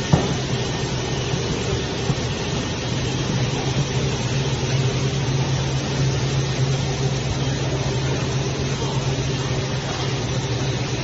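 Steady low machine hum and air-handling noise of a factory floor, with a faint constant tone above the hum. A single short click just after the start.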